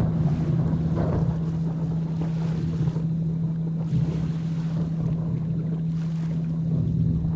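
Steady low 165 Hz binaural-beat tone held over the even hiss of rain, with low thunder rumbling that swells near the start and again near the end.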